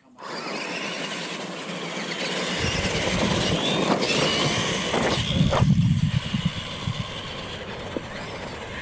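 R/C monster trucks launching off the start line and racing on a dirt track: a sudden rush of motor, gear and tyre noise with a rising whine, building to its loudest a little past the middle, with a few sharp knocks along the way.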